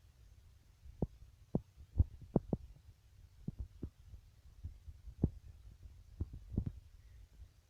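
Mother cat purring, a low steady rumble, with irregular soft clicks and knocks over it.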